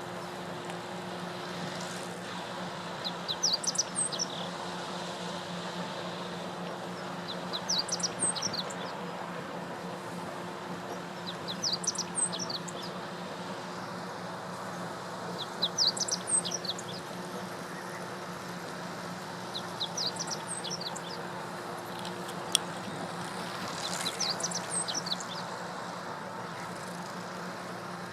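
Meadow bunting singing: a short phrase of quick high notes repeated about every four seconds, six times, over a steady low hum.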